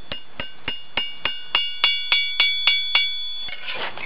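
Blacksmith's hammer striking steel on an anvil in a quick steady rhythm, about three blows a second, each blow leaving the anvil ringing. The blows grow louder toward the middle and stop about three seconds in.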